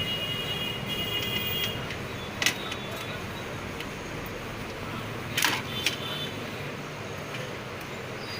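Scattered clicks and knocks from a desktop computer's motherboard and metal case being handled as the board is taken out. Sharper clicks come about two and a half and five and a half seconds in, over a steady low hum. A faint high tone sounds during the first second and a half.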